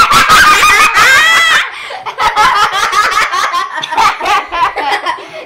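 Children laughing hard, starting with a loud high-pitched wavering shriek of laughter for about a second and a half, then continuing in shorter bursts. The laughter is set off by the Pie Face game's hand smacking whipped cream into one child's face.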